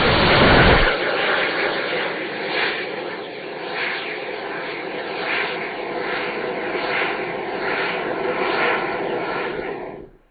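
Twin model-rocket motors roaring at liftoff, the heavy roar dropping away about a second in. A steady rushing drone with a faint hum and slow swells follows, until the sound cuts off near the end.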